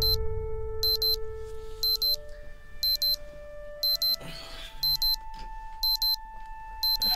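Digital watch alarm beeping: short high-pitched double beeps repeating about once a second, over soft sustained background music. Brief rustling of bedding partway through.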